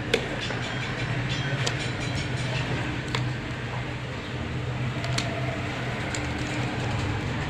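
A steady low hum with a few sharp, light clicks, about three seconds apart, as a phone and small repair tools are handled.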